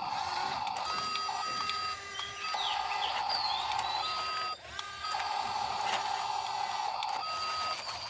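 Small electric motor of a radio-controlled construction machine whining as it works. The whine cuts in and out every second or two, alternating with a higher, thinner steady tone. Faint bird chirps come through now and then.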